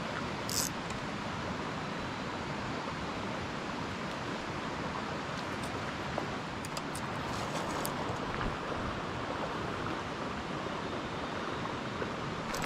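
Steady rushing outdoor noise at a trout pond, with a few faint sharp clicks about six to eight seconds in.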